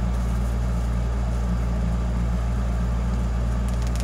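Steady low hum, with a brief faint crackle near the end.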